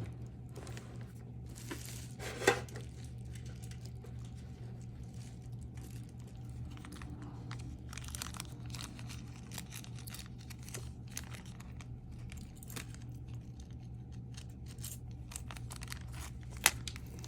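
Small plastic jewelry baggies crinkling and rustling as they are handled, with many small scattered clicks and two sharper clicks, one a couple of seconds in and one near the end, over a steady low hum.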